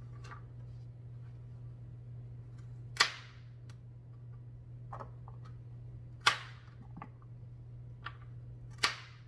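Sharp knocks and clatter from cookware and utensils being handled in a kitchen: three loud strikes a few seconds apart, each with a short ringing tail, and a few lighter taps between. A steady low hum runs underneath.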